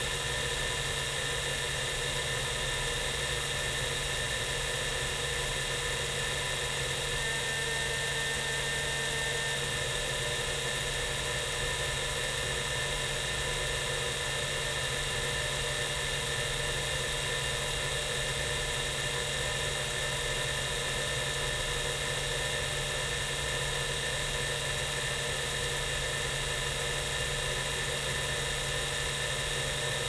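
Micropolis 1325 5.25-inch full-height MFM hard drive, with a 3600 RPM spindle and rotary voice-coil head actuator, seeking continuously through a random-access benchmark. Its head seeks run together into a steady, dense mechanical buzz over the hum of the spinning platters.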